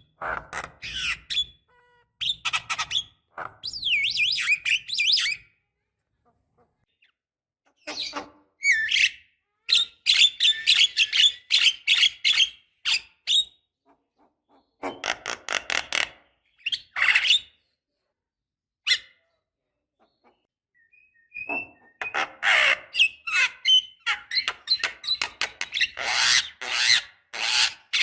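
Javan myna chattering in bursts of rapid clicking, harsh and whistled notes, with silent pauses of a few seconds between bursts.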